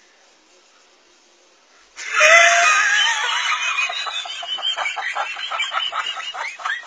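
About two seconds in, a person bursts into high-pitched, shrieking laughter, which carries on in rhythmic ha-ha pulses of about four a second that slowly fade.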